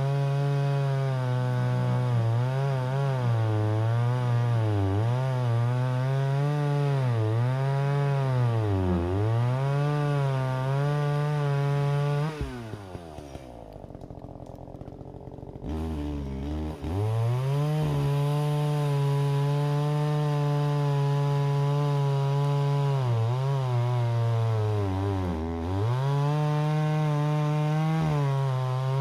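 Gas chainsaw running at high revs and cutting wood, its pitch sagging again and again as the chain bites. About halfway through it drops to idle for a few seconds, then revs back up and cuts on.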